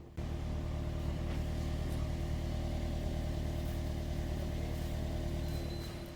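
Toyota Corolla 1.6-litre four-cylinder petrol engine idling steadily and evenly, with no misfire after its repair. The level drops a little near the end.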